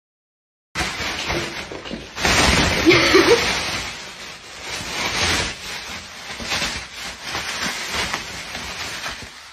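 Thin plastic shopping bag rustling and crinkling as it is handled and lifted, starting about a second in and loudest between two and three and a half seconds.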